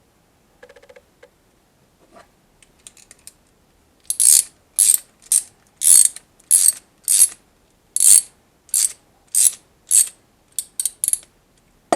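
Ratchet wrench tightening a clamp bolt: after a few faint clicks, a run of loud ratcheting strokes begins about four seconds in, roughly one and a half a second, ending with a few quicker, shorter strokes.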